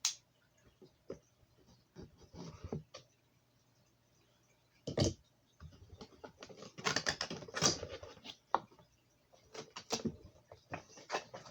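Reel box being opened by hand and its packaging handled: scattered clicks and taps, a sharp knock about five seconds in, then a stretch of rustling and clicking.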